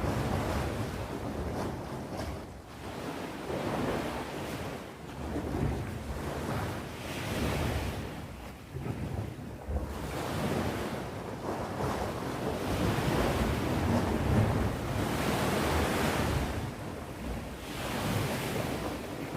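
Sea waves breaking and washing on the shore, surging and falling back every two to four seconds over a low rumble.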